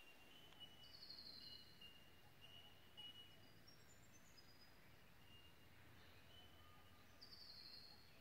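Faint forest birdsong from more than one bird: thin high notes repeating throughout, with a short buzzy trill about a second in and again near the end.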